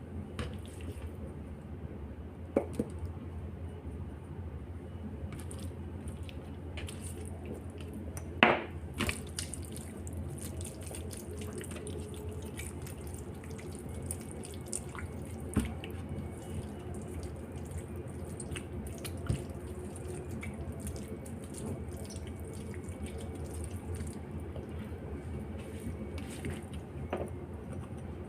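Wet dripping and squishing of raw chicken thighs being rubbed by hand with seasoning, with scattered light knocks. The loudest knock comes about eight seconds in, over a low steady hum.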